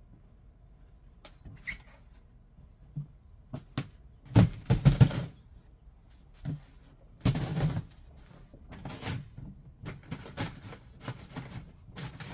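Large cardboard shipping box being opened and handled: cardboard flaps scraping, rustling and knocking, with two loud bursts of cardboard noise about four and seven seconds in and lighter rustling and knocks after.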